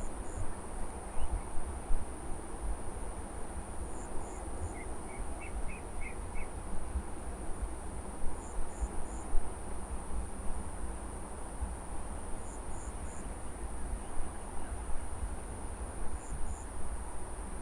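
Crickets and other insects in a harvested rice paddy, a steady high-pitched drone with a short triple chirp repeating about every four seconds. A brief run of faint chirps comes about five seconds in, over an uneven low rumble.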